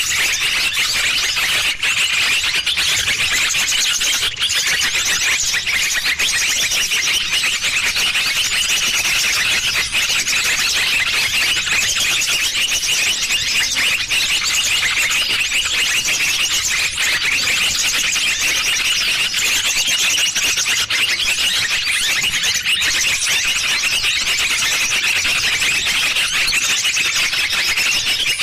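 Lure recording for trapping small birds: a dense, unbroken chorus of many small birds chirping rapidly at high pitch.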